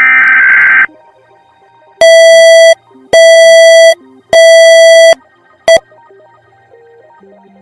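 Emergency Alert System alarm tones: a loud burst of EAS data tones lasting under a second, then three harsh, buzzy beeps about a second apart and a short clipped fourth blip.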